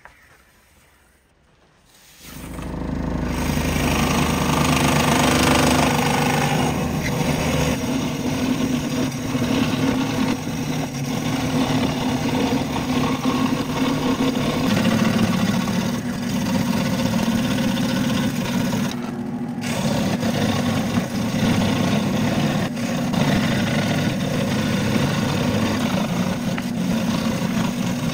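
Ryobi 16-inch scroll saw starting up about two seconds in and running steadily, its reciprocating blade cutting through a slab of cast epoxy resin with a fast, even buzz.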